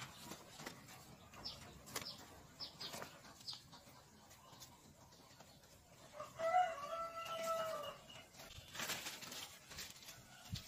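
A rooster crows once, a long call about six seconds in that is the loudest sound. Around it, leaves and stems rustle and crackle as a plant is pulled by hand.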